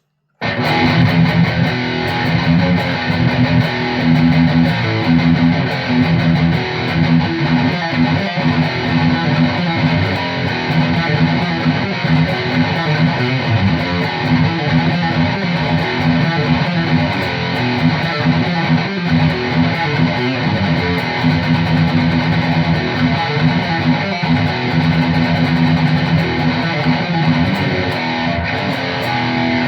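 High-gain distorted electric guitar playing heavy chugging rhythm riffs. The sound is an ESP E-II Horizon with EMG pickups through an ENGL Fireball amp with the gain cranked, its front end boosted by a Precision Drive pedal. The playing starts about half a second in and cuts off sharply at the end.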